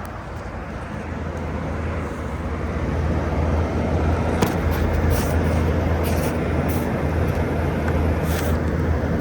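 A 2012 Frigidaire 18,500 BTU window air conditioner running: a steady low hum with fan and air noise, growing gradually louder over the first few seconds, with a few faint ticks.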